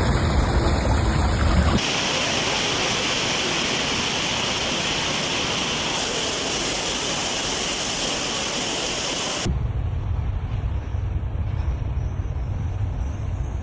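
Steady storm noise of heavy rain and wind, in three abruptly cut stretches: a low wind rumble, a bright rain hiss from about two seconds in, then a low rumble again from about nine and a half seconds in.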